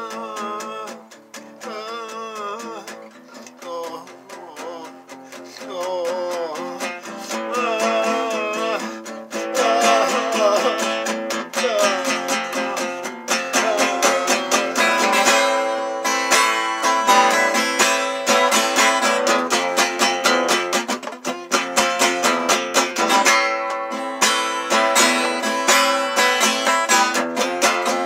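Acoustic guitar played by hand: softer playing for the first several seconds, then steady, louder strumming from about ten seconds in.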